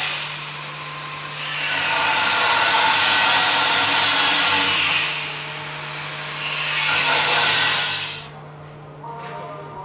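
Power tool running with a steady motor hum, swelling twice into loud, harsh grinding noise as it cuts, the second swell shorter.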